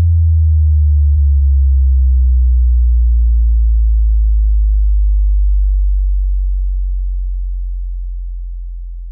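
Deep sub-bass tone from an electronic dance remix, held alone and gliding slowly downward in pitch: the long sliding 'bass gleer'. It stays loud for about six seconds and then fades.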